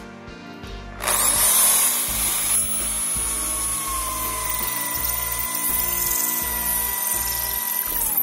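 Electric drill boring into an old wooden board. It starts about a second in, runs with a steady high whine that drops slightly in pitch, and stops abruptly near the end.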